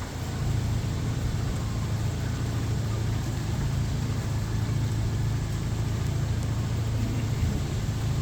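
An engine running steadily with an even low hum, under a broad rushing noise.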